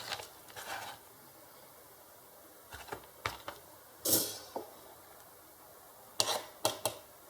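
Small hand tools clicking and scraping against a circuit board while push buttons are being removed: scattered light clicks in a few clusters, with one louder, hissy scrape about four seconds in.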